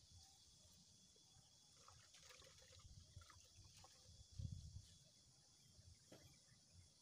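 Near silence: faint garden ambience with soft rustles from hands working potting soil and pots, and a dull low thump about four and a half seconds in.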